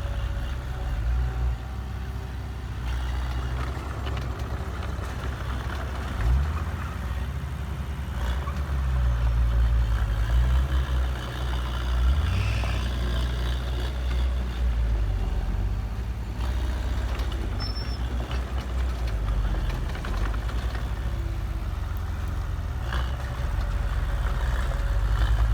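Heavy diesel engine of earthmoving machinery running under changing load, its engine speed rising and falling several times.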